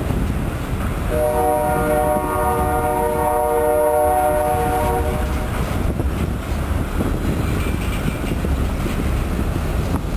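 A diesel locomotive air horn sounds one long steady chord, starting about a second in and lasting about four seconds. Under it is the continuous rumble of a freight train's cars rolling past.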